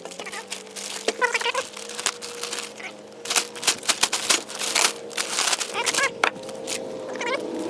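Packaging being opened by hand: a run of sharp crackles, snaps and rustles of cardboard and plastic wrap, densest in the middle.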